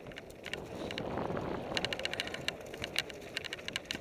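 Mountain bike descending rough dirt singletrack at speed: a steady rush of tyre and wind noise, with rapid metallic clicking and rattling from the bike that picks up after a couple of seconds.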